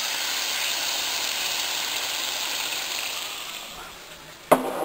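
Sirloin sizzling in a hot frying pan as teriyaki sauce is poured onto it: a loud hiss flares up at once, holds for a few seconds, then dies away. A single knock comes near the end.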